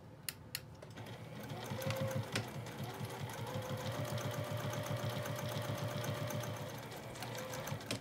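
Juki sewing machine top-stitching along a zipper seam. After a couple of light clicks, the needle runs in a fast, even rhythm over a steady motor whine from about a second in, then slows and stops near the end.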